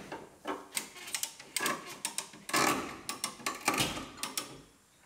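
Irregular metallic clicks and clanks, a few a second, from a clamp and portable pulling ram being worked to pull out a damaged pickup cab floor and rocker.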